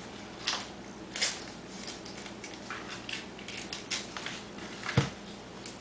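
Short scratchy snips and rustles at irregular intervals as a whole raw chicken is cut open, with one sharp knock about five seconds in.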